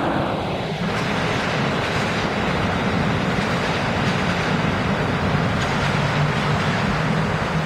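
Passenger train hauled by an EU07 electric locomotive pulling away, its wheels running over the rails in a steady rumble. A falling whine sounds about half a second in.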